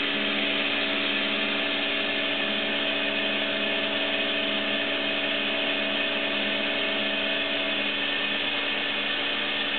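Sharp SV-2412 CNC vertical machining center running with a steady hum, plus a steady servo whine as the Z axis travels to its zero-return home position. The whine cuts off about eight seconds in, when the axis reaches home.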